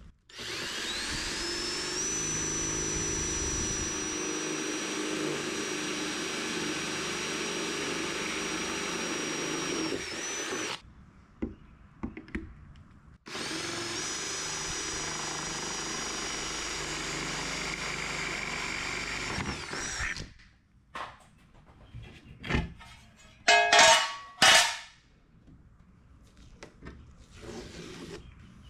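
Power drill with a 1/4-inch bit boring pilot holes through the door armor panel: it spins up with a rising whine and runs steadily for about ten seconds, stops, then runs again for about seven seconds. Near the end come a few loud clatters and knocks.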